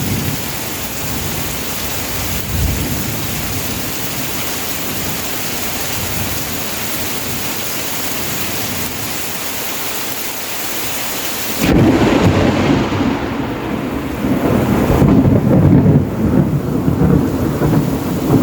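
Heavy rain falling as a steady hiss. About twelve seconds in, the sound turns suddenly louder and deeper, a low rumble over the rain.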